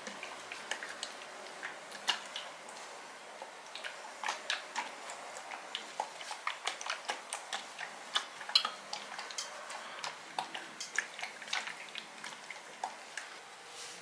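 Tefal steam iron being pushed back and forth over fabric on an ironing board: a run of irregular small clicks and taps, several a second.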